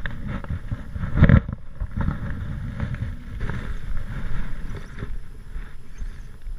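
Wind buffeting the GoPro's microphone as an uneven low rumble, with one loud thump about a second in.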